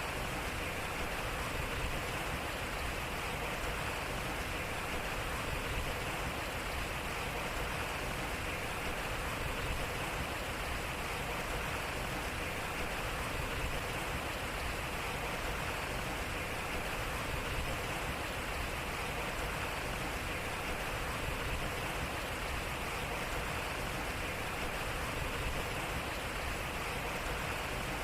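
Water running and splashing at a turning water wheel, a steady even rush of water.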